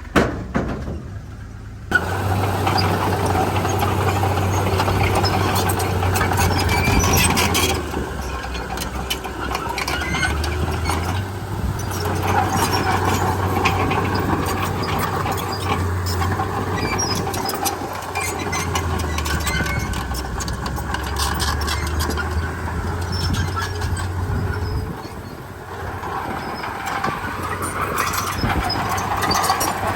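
Komatsu D31P crawler bulldozer's diesel engine running under work, with a wavering squeal from the machine. It comes in about two seconds in after a short lull and eases briefly near the end.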